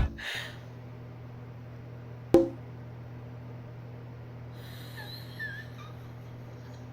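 Quiet room tone with a steady low electrical hum. One sharp click comes about two and a half seconds in, and a few faint, short, high chirps follow a couple of seconds later.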